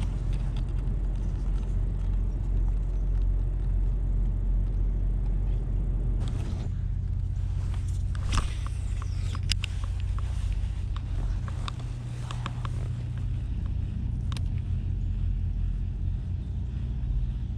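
Steady low hum of a boat's motor, with scattered light clicks and knocks.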